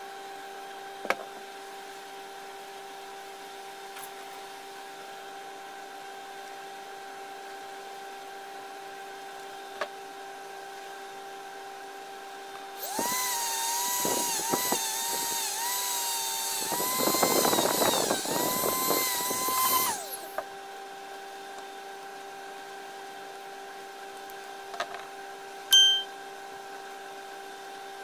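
Electric drill fitted with a wire cup brush running steadily. From about halfway through, for some seven seconds, the brush scrubs the metal housing of a planer motor's field coil, adding a loud scratchy hiss while the motor's pitch dips each time it is pressed, then it returns to running free. A few light clicks near the start and near the end.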